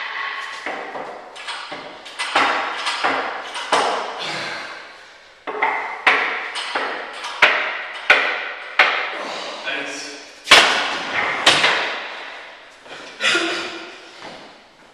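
Loaded barbell and iron plates clanking and knocking during close-grip board presses: a string of sharp, echoing knocks about one to two a second, the two loudest a little past halfway.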